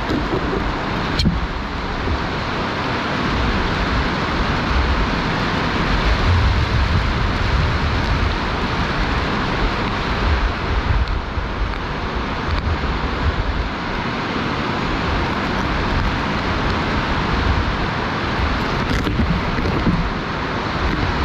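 Steady wind noise on the microphone, with gusts that swell and fade as a low rumbling buffet, and one sharp tap about a second in.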